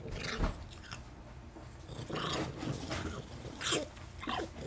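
Chihuahua–miniature pinscher mix growling in several short bursts: resource guarding, warning people away from its peanuts.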